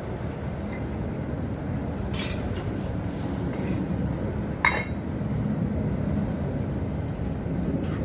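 Stainless steel cooking pots and lids clinking as they are handled, with one sharp ringing clink about two-thirds of the way through, over a steady low rumble of vehicles.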